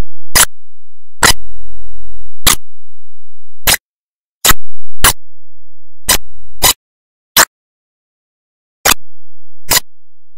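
A series of sharp clicks at uneven intervals, about one a second, with a faint low hum under a few of them.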